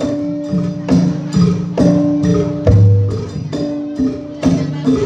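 Javanese gamelan music for jathilan: struck metal keys and gong-chimes ring out a repeating pattern over drum strokes, with one deep gong stroke about halfway through.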